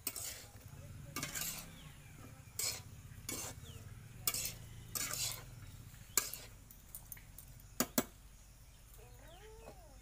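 Metal spatula stirring and scraping vegetables frying in a steel kadai, a series of short scrapes over a low sizzle of oil. Two sharp metal clinks come about eight seconds in, and a faint animal call is heard just before the end.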